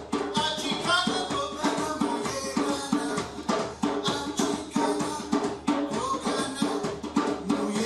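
Live hand percussion playing a fast, steady rhythm: drums struck many times a second, with rattling percussion over them.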